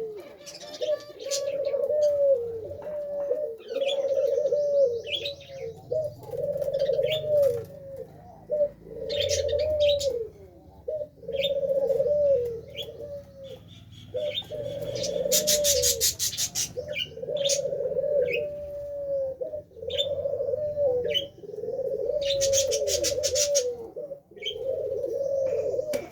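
Pigeons cooing over and over, a long coo about every two seconds that ends in a falling note, with sharp chirps from smaller birds and two short rattling bursts, one near the middle and one near the end.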